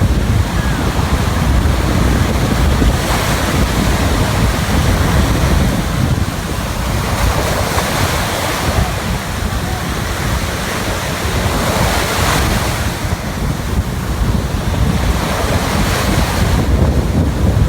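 Surf washing onto a beach, swelling every few seconds, with wind buffeting the microphone in a heavy low rumble.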